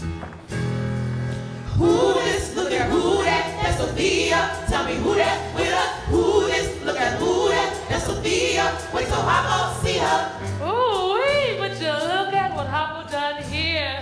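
Live stage-musical song: several voices singing together over instrumental accompaniment, then from about ten seconds in a woman's solo voice with wide vibrato.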